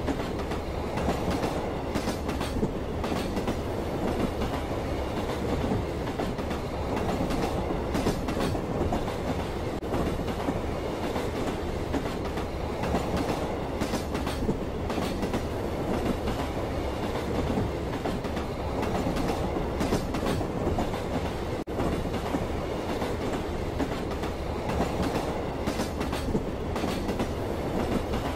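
Passenger train running at speed, heard from inside the carriage: a steady rumble of wheels on the rails with scattered sharp clicks and clacks from the track.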